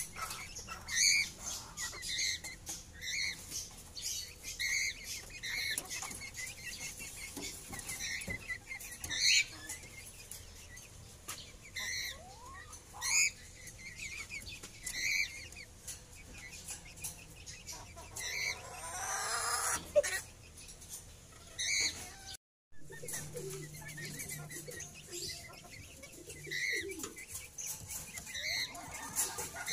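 Young Silkie chickens giving short, high cheeping calls every second or so, with a brief flurry of wing flapping about two-thirds of the way through.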